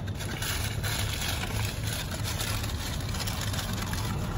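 Car engine and road noise heard inside the cabin: a steady low hum under an even hiss.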